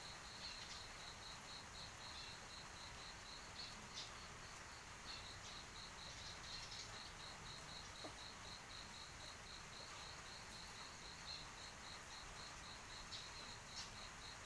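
Faint insect chirping in a steady, even pulse of about four high chirps a second, with a short break about four seconds in.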